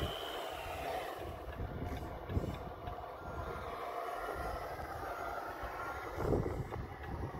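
HG-P408 RC model Humvee running over concrete at a distance, its drive faint under a low rumble, with a louder swell about six seconds in.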